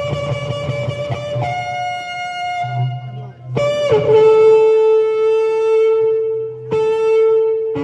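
Shofar blown in long held blasts: the first steps up in pitch about a second and a half in, a second starts about three and a half seconds in and drops sharply in pitch just after it begins, and a third starts near the end.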